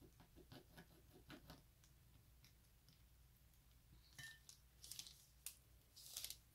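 Faint small clicks and taps of hand work with a paintbrush and small plastic paint pots, with a few louder short scratchy rustles about four seconds in and again near the end.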